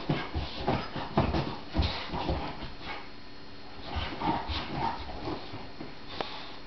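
Boxer puppy playing rough with a fabric dog bed: irregular thumps and rustling as it pounces on, paws and tugs at the bed, with a few short vocal sounds from the dog about four and five seconds in.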